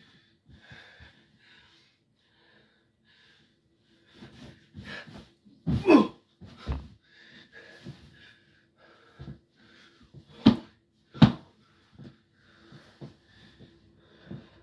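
A person's body bumping and landing on a box-spring bed, with rustles and creaks from the mattress. The loudest is a sharp thump about six seconds in, with two more about ten and eleven seconds in.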